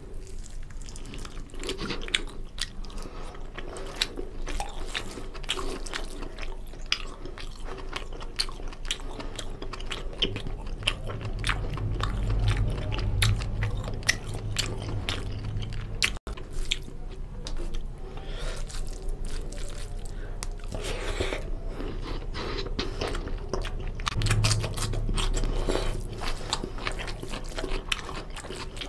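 Close-miked chewing of mutton curry and rice eaten by hand: a steady run of wet smacking and squelching mouth sounds, with fingers squishing gravy-soaked rice.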